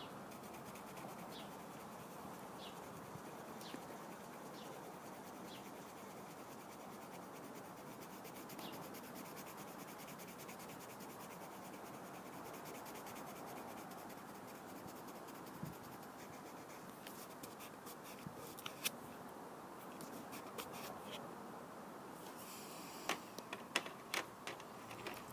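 Soft Winsor & Newton colored pencil rubbing back and forth on paper as a swatch is colored in, a faint steady scratching. A few light clicks and taps come near the end.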